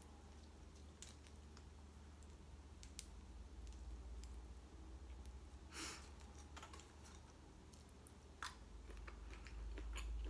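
Faint scattered clicks and a short crackle or two of fingers and long nails picking through seafood in aluminium foil trays, with soft chewing.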